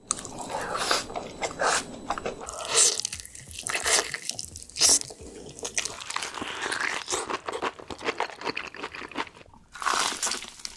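Crunching bites into crispy fried chicken, with chewing in between, picked up by a close microphone. The crunches come irregularly and sharply, the loudest about three, four and five seconds in.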